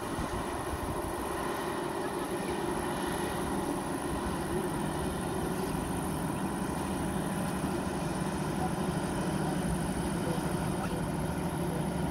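Pusher tug's diesel engine running steadily as it pushes a loaded cargo barge along the river, a low continuous drone, with wind rumbling on the microphone.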